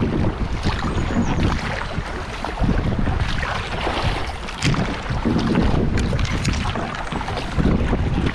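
River water rushing and splashing around a paddled boat on a moving current, with wind buffeting the microphone. The sound is loud and uneven throughout, with short splashes scattered through it.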